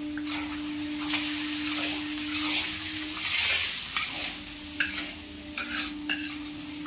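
Masala and chicken sizzling in a large black kadai while a spatula stirs and scrapes through it, with a few sharp knocks of the spatula against the pan in the second half.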